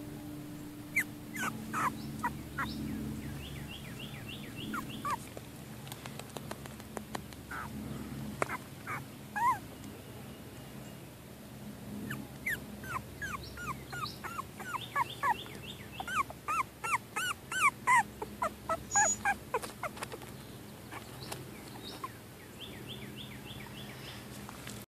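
Young Cavalier King Charles Spaniel puppies, about 25 days old, whimpering in many short, high squeaks that rise and fall in pitch. The squeaks come most thickly in the second half.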